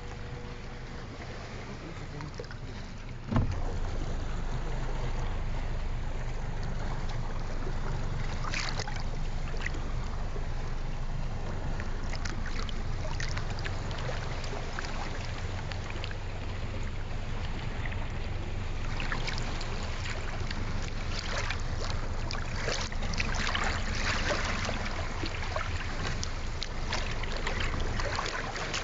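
Muffled underwater rumble of water moving around a submerged camera, with a sharp knock about three seconds in and scattered crackling clicks, most frequent in the last third.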